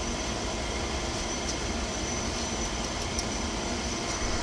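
Pool heater and its equipment running: a steady mechanical hum with a hiss above it.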